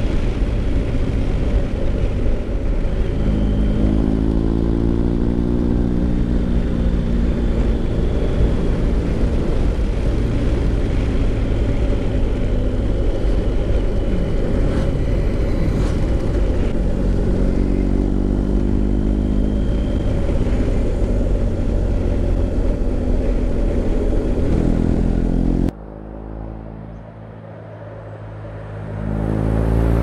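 BMW R1250GS Adventure's boxer twin, breathing through a new Remus Hawk aftermarket silencer, running hard under way with wind noise. The engine pitch climbs twice under acceleration. Near the end the sound drops suddenly to a lower level, then builds again.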